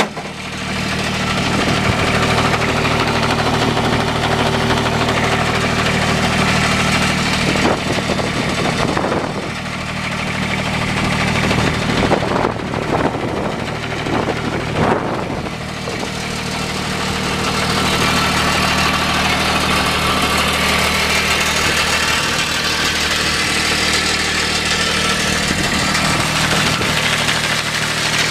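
Diesel engine of a 2011 Allmand TLB425 loader backhoe idling steadily. About halfway through, the sound turns uneven for several seconds with a few knocks, then settles back to a steady idle.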